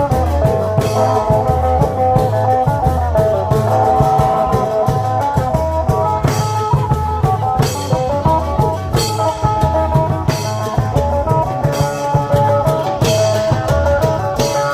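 Isan klong yao long-drum band playing lively procession music: the drums pound a steady beat under a repeating melody line, with cymbal splashes.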